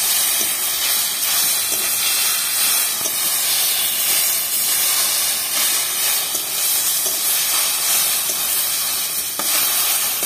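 Spinach and vegetables sizzling and steaming in a hot kadhai as a flat metal spatula stirs them: a steady high hiss with a few faint scrapes.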